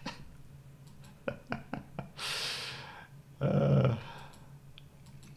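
A few quick clicks from a computer mouse or keyboard, then a long breath out and a brief hum from the person at the computer.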